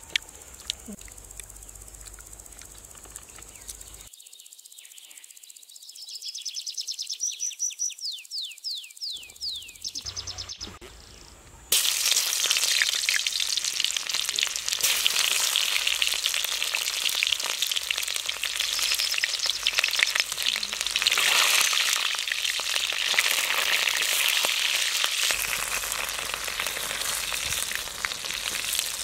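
Onions frying in hot oil in an iron kadhai, a loud, dense sizzle that starts abruptly about twelve seconds in and carries on. Before it there is quiet outdoor ambience with a quick run of high chirps.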